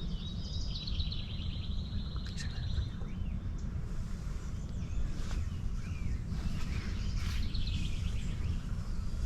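Songbirds singing rapid trills, one lasting a couple of seconds near the start and another near the end, over a steady low rumble.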